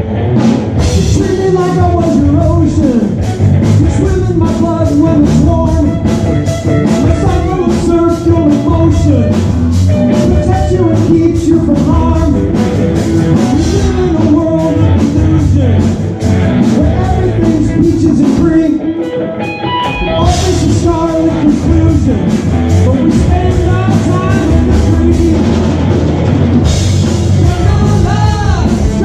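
Live rock band playing at full volume: electric guitar, bass and drum kit keeping a steady beat, with a lead singer. A little past halfway the beat drops out for about a second, then the full band comes back in.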